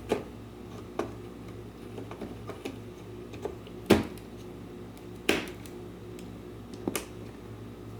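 Hands handling computer parts while fitting components to a motherboard: a handful of sharp clicks and taps, the loudest about four seconds in, over a steady low hum.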